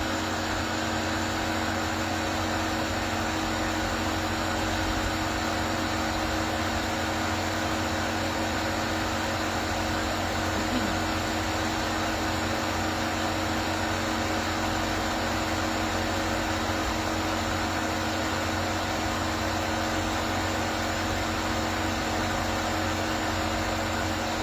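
Steady mechanical hum with several fixed tones, unchanging throughout.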